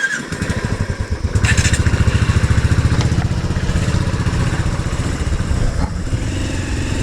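Motorcycle engine starting up and running, its exhaust pulsing quickly; it gets louder about a second and a half in as it revs, then runs steadily.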